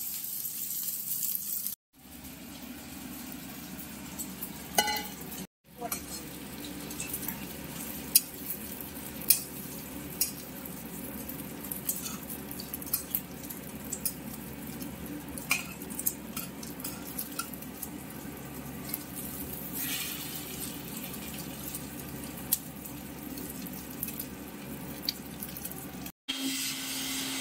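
Egg-soaked bread slices frying in hot oil in a pan: a steady sizzle with scattered sharp clicks of a utensil against the pan. It breaks off briefly a few times.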